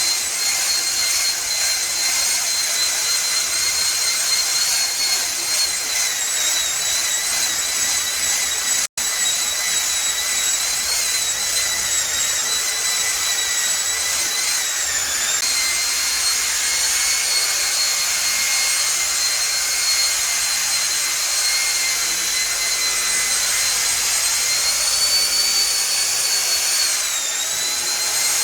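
Electric paint polisher running steadily with a high whine while buffing clear coat with fine polish. Its pitch dips briefly twice, about halfway and near the end, as it loads against the paint, and the sound cuts out for an instant about nine seconds in.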